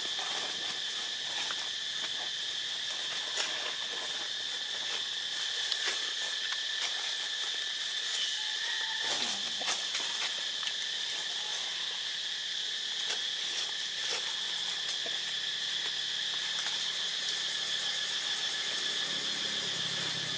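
Steady chorus of insects droning at a high pitch, with scattered faint clicks and rustles and a brief falling sound about nine seconds in.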